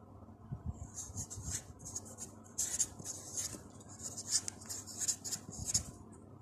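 Pilot felt-tip marker writing, its tip scratching across the sheet in a run of short, uneven strokes. The strokes start about a second in and stop just before the end.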